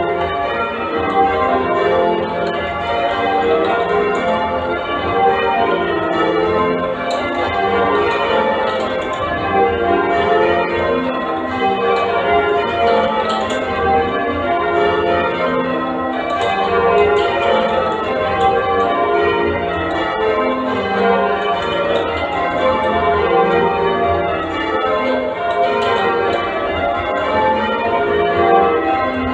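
A ring of church bells in change ringing, the bells struck one after another in a continuous, even rhythm.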